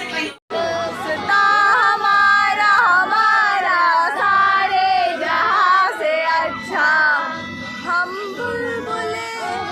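Music with a high singing voice, after a brief break in the sound about half a second in.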